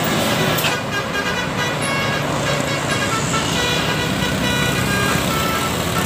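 Basuri telolet multi-tone bus horn playing a melody of held notes that step from one pitch to the next, over steady road traffic noise.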